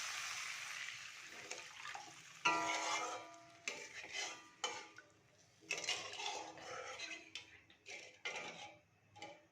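Stirring and scraping in a metal kadai of masala just after water has gone in: a hiss fades over the first couple of seconds, then a ringing metal clank about two and a half seconds in, followed by repeated clinks and scrapes of a utensil against the pan.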